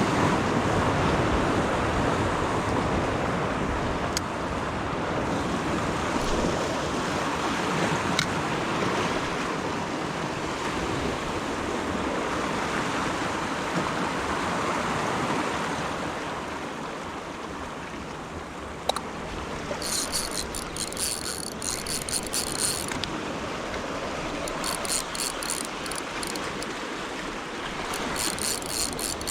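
Sea waves washing on the shore, with some wind. In the last third, three bursts of rapid high-pitched ratcheting clicks from a fishing reel being worked.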